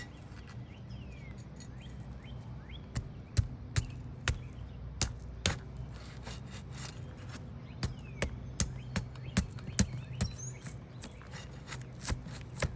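Sharp, irregular clicks and snaps as the sealant strip of roughly 20-year-old asphalt shingles is broken loose with a prying tool. They come in two clusters, over a steady low hum.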